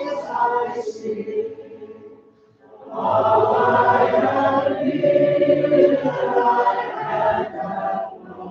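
Group of voices singing a hymn together in sustained notes, breaking off briefly about two seconds in and coming back in fuller and louder.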